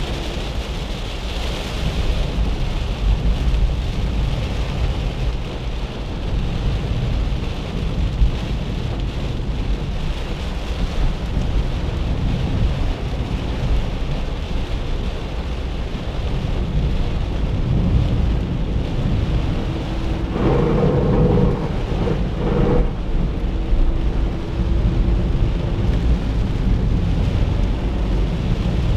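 Cabin noise of a 1997 Chevrolet Corsa Wind MPFI cruising on a highway in heavy rain: a steady low rumble of engine and tyres on the wet road, with rain hissing and pattering on the body. About twenty seconds in, a brief louder tonal sound with a couple of sharp knocks rises over it.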